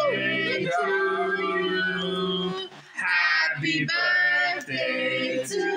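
Men and women singing together, holding and sliding notes, with a short break about three seconds in.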